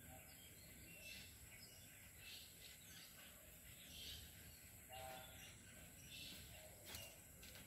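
Near silence: faint outdoor background ambience with a few faint, brief sounds.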